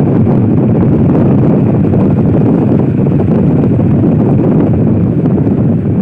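Loud, steady rush of wind buffeting the microphone of a phone held at a moving car's side window, mixed with the car's road noise.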